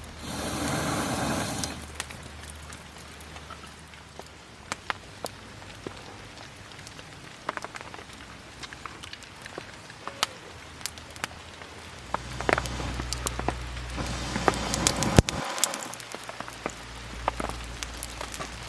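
Rain pattering on a polycotton (TC) camping tarp, with many scattered sharp drop taps. The rain swells louder for the first two seconds and again from about twelve to sixteen seconds in.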